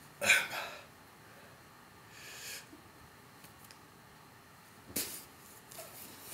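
A person's breath: a sharp puff about a quarter second in, a softer hiss around two seconds in, and another sharp puff about five seconds in, with a few smaller ones near the end.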